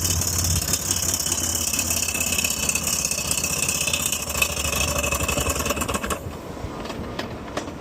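Harley-Davidson FXR's V-twin engine running with a loud, crazy-sounding mechanical clatter after the motor blew up and sent smoke out through the pipe. It gets somewhat quieter about six seconds in.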